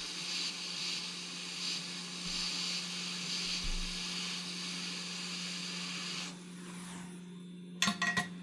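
Air blowing from a nozzle onto the phone's logic board during cleaning: a steady hiss that cuts off about six seconds in. A few sharp clicks follow near the end, over a low steady hum.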